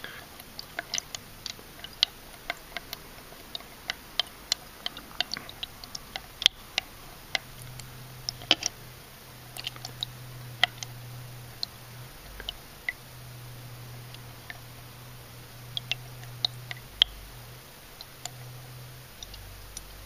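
Irregular sharp ticks of leak sealant dripping from a can of Super Seal HVAC/R stop leak into a plastic cup, one to a few drops a second. A low hum comes and goes from about a third of the way in.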